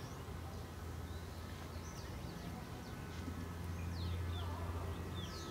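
Distant earthmoving machinery (excavators and bulldozers) running with a steady low engine drone that grows a little louder about three seconds in. Birds chirp over it in short, falling calls.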